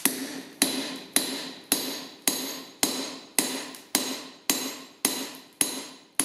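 Ball-pein hammer striking a steel drift in a hot-punched hole in red-hot square steel bar on the anvil: twelve steady blows, a little under two a second, each ringing briefly. The drift is being driven about halfway through to open the hole out to 20 mm round.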